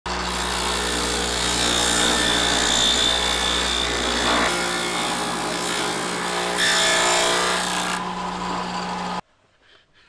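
Electric table saw running and ripping a wooden board, a steady motor hum under the noise of the blade cutting wood. The cutting grows heavier for a while after the middle, then the sound stops abruptly shortly before the end.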